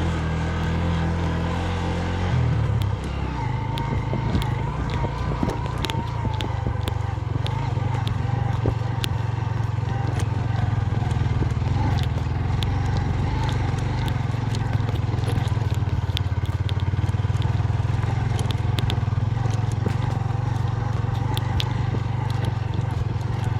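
Motorcycle engine running while riding, its note shifting about two and a half seconds in, with scattered clicks and rattles.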